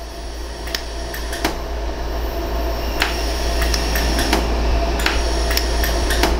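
Pulsed jewellery laser welder firing, each pulse a sharp snap, about ten at uneven intervals under a second apart, over a steady hum. Each pulse fuses 14-karat gold wire onto a worn prong tip to build it back up.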